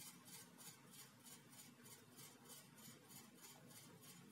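Near silence: faint background with a soft high hiss that pulses evenly about four times a second.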